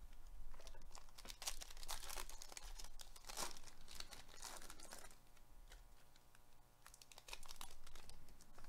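Foil wrapper of a Panini Select baseball card pack being torn open and crinkled by hand, a run of dry rips and crackles.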